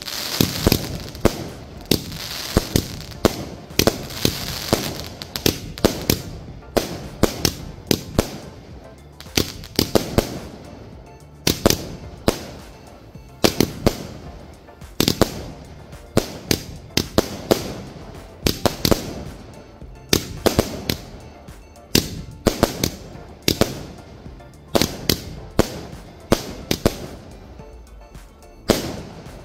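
A 120-shot multi-colour repeater cake firing: a rapid run of sharp bangs in clusters of a few a second, with crackling and hiss in the first few seconds.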